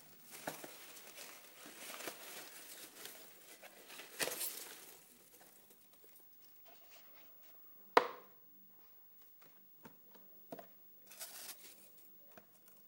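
Tissue paper and shredded paper packing rustling and crinkling as a helicopter canopy is pulled out of a cardboard box. The rustling dies down about five seconds in, leaving scattered light taps, one sharp knock about eight seconds in, and a brief rustle near the end.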